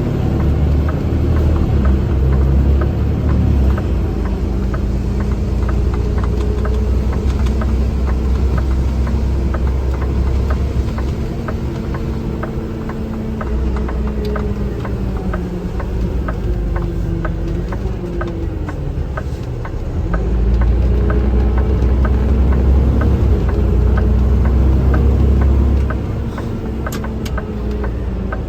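Garbage truck engine running, heard from inside the cab while driving, its pitch rising and falling with speed. A heavier low rumble comes in the first few seconds and again about two-thirds of the way through.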